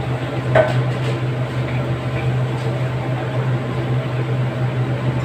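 Steady low hum of kitchen background noise with a sharp clink of metal cookware about half a second in and a couple of fainter clinks later.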